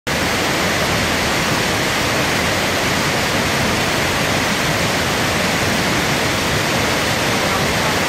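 Tortum Waterfall, a tall fall of water down a rock cliff, pouring into its pool: a loud, steady rush of falling water heard from the base.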